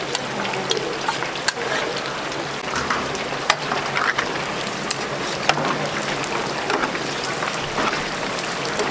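Battered chicken pieces deep-frying in a commercial fryer: hot oil sizzling and crackling steadily, with scattered sharp pops.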